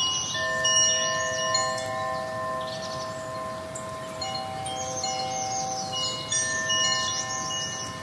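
Chimes ringing: several long, overlapping tones at different pitches, each sounding for a few seconds, fading in and out one after another.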